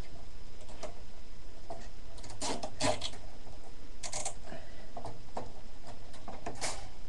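Plastic cable ties and a case fan being handled against a steel computer case: scattered clicks, scrapes and rattles, with small clusters about two and a half, four and six and a half seconds in.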